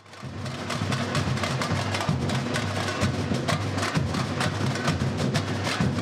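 Samba bateria playing a steady, fast samba rhythm: deep surdo bass drums under many small drums struck with sticks, with sharp clicking stick strokes throughout.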